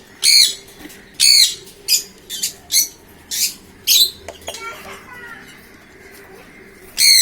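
African lovebirds calling: a run of sharp, high-pitched chirps, about six in the first four seconds, then a quieter stretch and another chirp near the end.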